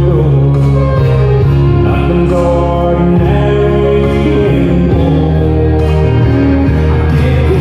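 A song playing: a singing voice over instrumental backing, with long held notes.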